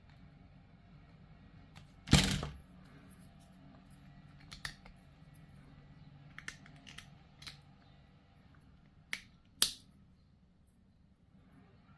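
Sharp clicks and taps of hard plastic miniature parts being handled, snipped and pressed together. The loudest click comes about two seconds in, smaller ones follow, and two more strong clicks come near the end.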